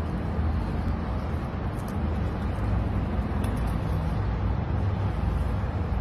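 Steady low rumble of urban background noise.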